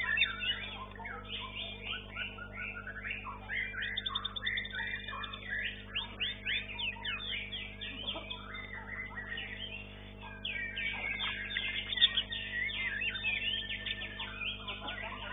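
Dense, continuous song of competing white-rumped shamas (murai batu), many rapid, varied phrases overlapping at once, over a steady low electrical hum. A single sharp knock stands out about twelve seconds in.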